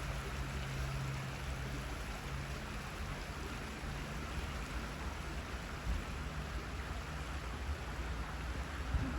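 Waterfall: a steady rush of falling water with a low rumble underneath.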